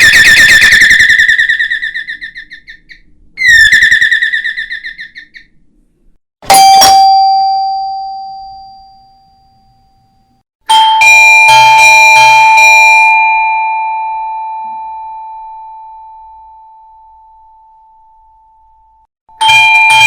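Doorbell sound effects in sequence: two trilling electronic rings of about two seconds each, then a single struck chime ringing out, then a longer two-tone chime that rings for several seconds before another chime starts near the end.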